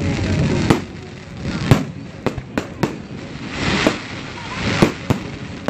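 Fireworks going off: a string of about eight sharp bangs, several close together in the middle, with crackling fizz between them.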